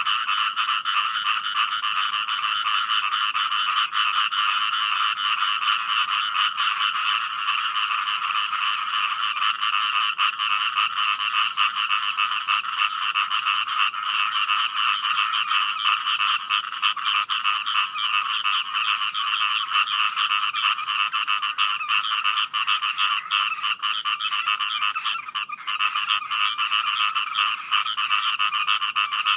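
Dense chorus of many frogs calling at once: fast, pulsing croaks overlapping into a continuous din without a break.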